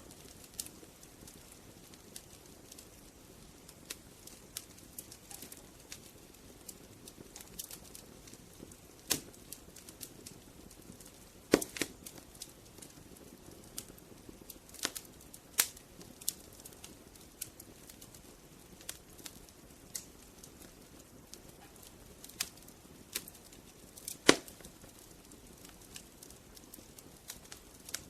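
Wood fire burning, crackling with irregular sharp snaps and pops over a soft low rush of the flames, a few snaps much louder than the rest.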